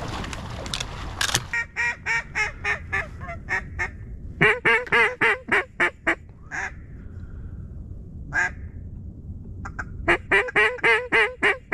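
Mallard duck call blown in rhythmic runs of hen quacks, about four quacks a second, three runs with a single quack between them. Wind noise on the microphone comes before the first run.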